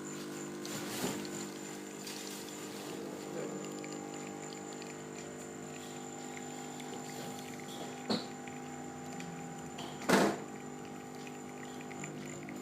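Gustino GS 688 espresso machine's pump humming steadily as it pushes water through, with a short click about eight seconds in and a louder knock about ten seconds in.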